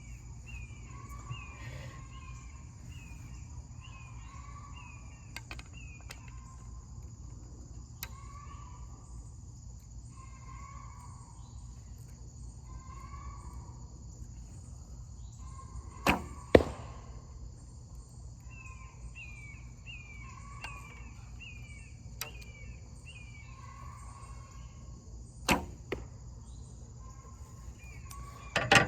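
Two shots from a Bear Alaskan longbow with a B55 string and no string silencers. Each is a sharp crack of string release followed about half a second later by the arrow striking the target; the first shot comes about 16 seconds in, the second about 25 seconds in. A steady insect drone and repeated bird chirps run underneath.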